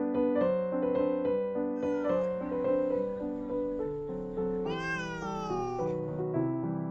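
Gentle piano background music, with a cat's single meow about two-thirds of the way through: about a second long and falling in pitch.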